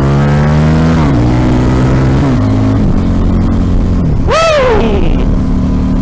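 KTM RC8 1190's V-twin motorcycle engine accelerating hard, its pitch climbing and then dropping at quick upshifts about one second, two seconds and nearly three seconds in, before settling at steady revs.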